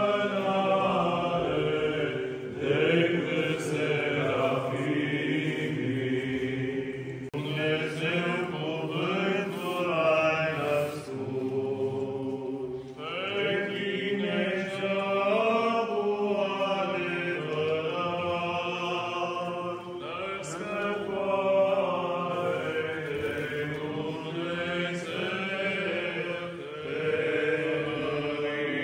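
Orthodox chanting: voices sing in long, slowly moving phrases with held notes, pausing briefly about 7 and 13 seconds in.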